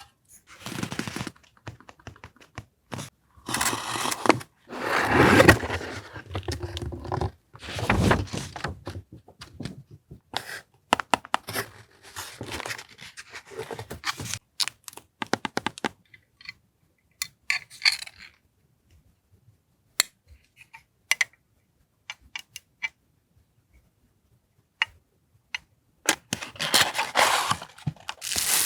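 Paper and plastic stationery packaging rustling and crinkling in short bursts as items are handled, with many scattered small taps and clicks in between.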